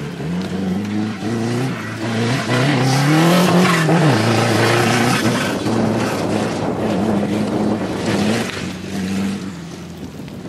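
Off-road racing buggy's engine revving hard as it accelerates over dirt. Its pitch climbs and it is loudest about three seconds in, then it runs on steadily and eases off near the end.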